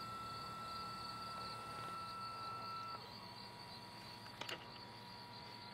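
Motors of an iOptron HEM27 telescope mount whining faintly as it slews to a target: a steady high whine that drops to a lower steady tone about three seconds in. Crickets chirp in a steady pulsing trill behind it, and a brief click sounds about four and a half seconds in.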